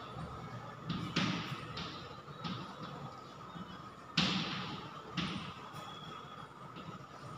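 Chalk writing on a blackboard: a run of short scratching strokes and taps, one every half second or so, the strongest about four seconds in.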